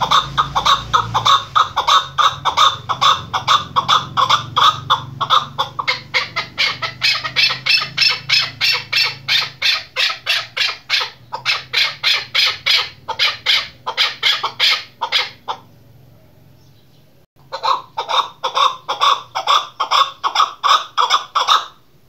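Female chukar partridge calling: a long run of rapid, sharp repeated notes, about five a second. The calling breaks off for about two seconds near the end, then starts again.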